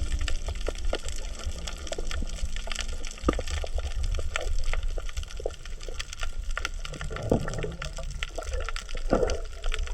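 Underwater coral-reef soundscape: a dense, irregular crackle of sharp clicks over a low rumble of water, with two low watery swells near the end. The uploader describes this crackle as 'michi-michi' and says it is said to be the coral breathing, perhaps mixed with coral breaking as fish feed on it.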